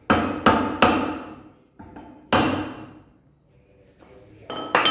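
Hammer blows on the metal parts of a washing machine's spin mechanism while it is being knocked loose for removal. There are three quick strikes, one more about a second and a half later, then two close together near the end, the last ringing.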